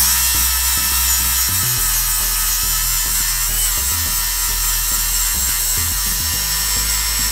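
DeWalt angle grinder with a flap disc grinding down weld high spots on a steel frame tube: a loud, steady, high-pitched grinding hiss with a whine, starting abruptly.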